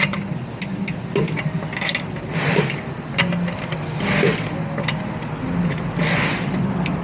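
Torque wrench tightening a wheel's lug nuts to 94, with repeated sharp clicks and ratcheting. Three short hisses come about two and a half, four and six seconds in, over a low steady hum.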